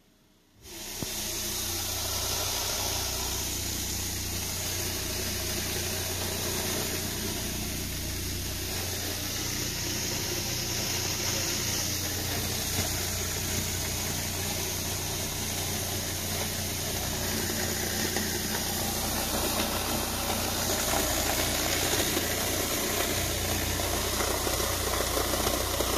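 Aura Indigo 12D2 12-inch subwoofer, driven by an Aura Fireball D1 600 monoblock at full gain, playing a 30 Hz test tone. It comes on suddenly about a second in as a steady, loud low hum with a rushing noise over it.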